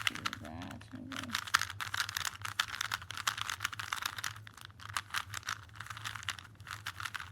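Plastic Rubik's-brand cube, a stock cube rather than a speed cube, being turned quickly by hand: a dense, uneven run of clicks and clacks from its layers twisting.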